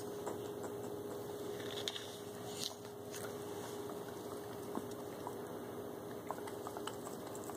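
A dog licking and nibbling another dog's fur close up, making soft, irregular wet clicks and smacks over a faint steady hum.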